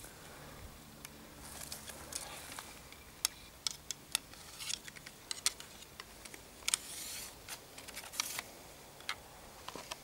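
Scattered light clicks and short rustles from a crossbow and its bolts being handled.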